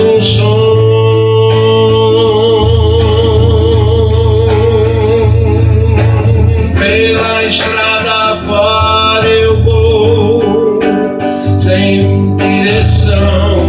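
A man singing long held notes with a wide vibrato while accompanying himself on an acoustic guitar, its low bass strings sounding under the voice.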